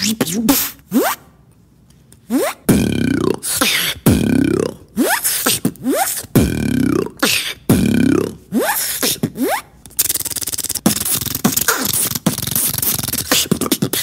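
Beatboxer making sound effects with the mouth alone: repeated swooping vocal pitch sweeps laid over beatbox percussion, after a brief pause about a second in, turning to a fast rattling run of clicks for the last few seconds.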